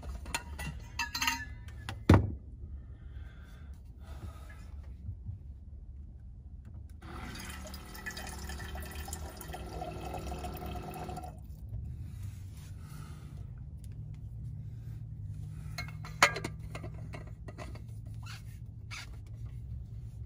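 Small electric water-jug pump dispensing water into a metal water bottle for about four seconds, the pour cutting off sharply. Bottle and lid handled around it, with a sharp knock about two seconds in and another late on.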